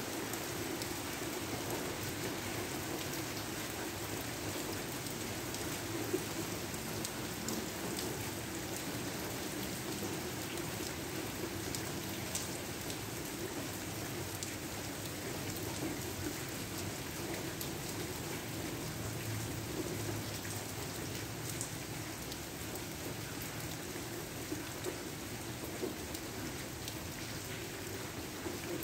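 Steady rain falling, a constant hiss with many small drops pattering on a surface.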